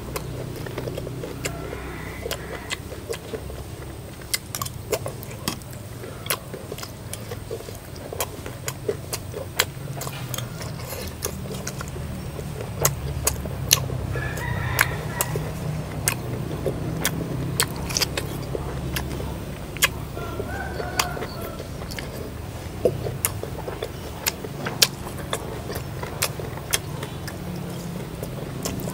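Crunching and chewing of fish-sauce-fried chicken tails: many sharp, irregular crackles and clicks over a steady low hum.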